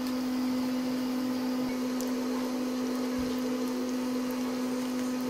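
A steady, even electric hum, like a small motor or fan running, over a faint hiss of oil frying, with a couple of light clicks.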